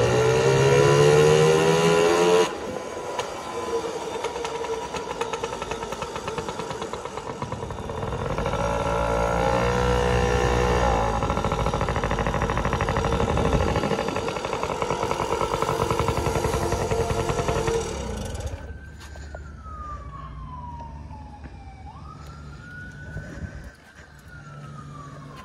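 Yamaha PW50's small 49cc two-stroke single engine running and revving while ridden, its pitch rising and falling with the throttle, loudest in the first couple of seconds. In the last several seconds it is quieter, with a slow whine that falls and rises.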